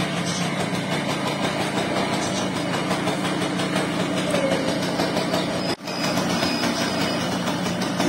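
Yamaha Y80's small two-stroke single-cylinder engine idling steadily, with a brief break about six seconds in.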